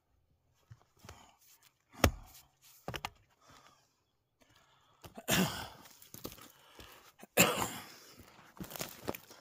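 Two sharp knocks, then footsteps on dirt and loud rustling and handling noise right at the microphone.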